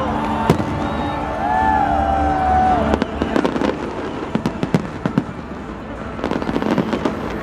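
Fireworks display: a steady run of sharp bangs and crackling bursts, with people's voices in the background.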